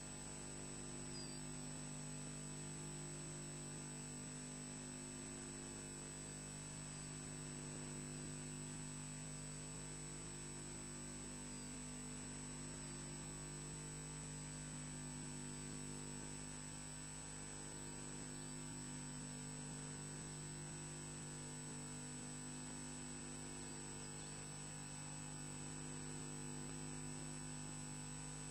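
Steady electrical mains hum from the nest camera's audio feed: an unchanging drone of several fixed tones, with no bird calling clearly over it.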